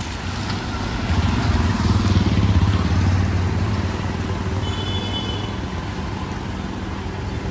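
A motor vehicle's engine passing close by on the street, swelling about a second in and easing off after the middle.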